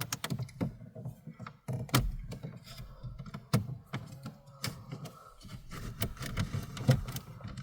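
Plastic trim tools prying at a VW Golf Mk4's dashboard trim around the hazard switch: irregular clicks, taps and knocks of tool on dash plastic as the trim is levered and its clips resist.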